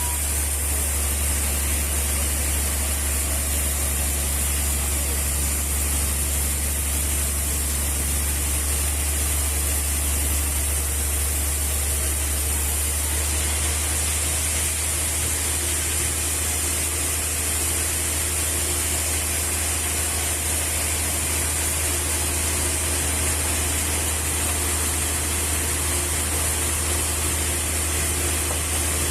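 Sawmill machinery running steadily: a deep, constant hum under a high hiss, unchanging throughout.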